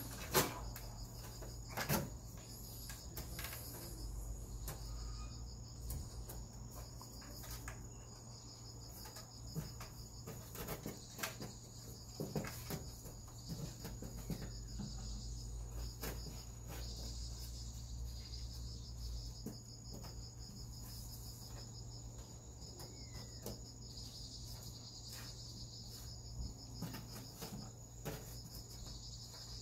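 Crickets chirping steadily in a high, even trill, with scattered light knocks and scratches. Two sharper clicks come in the first two seconds.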